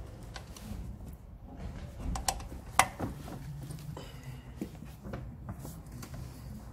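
Scattered light metallic clicks and knocks of work under a car bonnet, with one sharper click about three seconds in, over a low steady hum.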